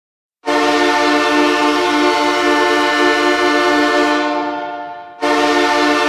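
Hockey goal horn: a loud, steady air-horn blast with several pitches held at once, starting about half a second in. It trails off over about a second, then blasts again abruptly just after five seconds in.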